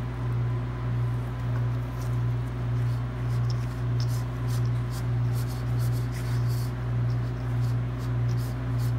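Spatula stirring and scraping a shredded sweet potato and flour mix in a stainless steel bowl, faint short scrapes over a loud, steady low hum.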